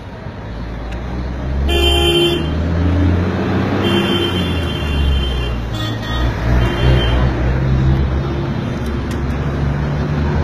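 Road traffic with engines running and vehicle horns honking several times, the first honk about two seconds in.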